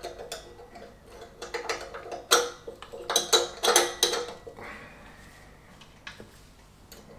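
Light metallic clinks and taps of the fan pulley's plates and fittings being handled and fitted by hand on the engine. There are several sharp clinks over the first four seconds, the loudest about two and a quarter, three and a half and four seconds in, then it goes quieter.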